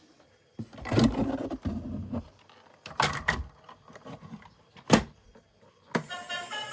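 Handling of plastic toys or their packaging, rustling and clattering in several bursts with a sharp knock about five seconds in. A tune with a stepping melody starts near the end.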